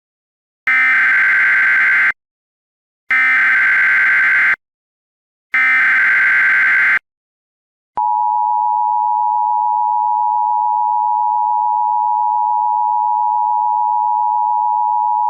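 Emergency Alert System tones: three bursts of screechy digital SAME header data, each about a second and a half with short gaps between, then about eight seconds in the steady two-tone EAS attention signal starts and holds.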